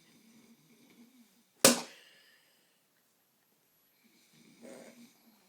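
A bottle striking a sleeping man once, a single sharp smack about a second and a half in. Softer breathy sounds come before it and again near the end.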